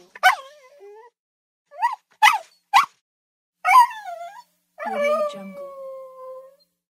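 Pomeranian giving a run of short yips and whines, then one long howl near the end that slowly sinks in pitch.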